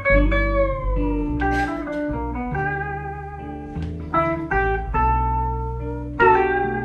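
Live blues trio playing an instrumental passage: a guitar lead line with bent notes over plucked upright double bass notes.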